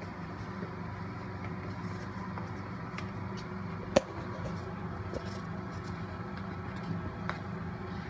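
Steady low hum, with a few faint clicks and one sharp click about halfway through as a cardboard tissue box is handled.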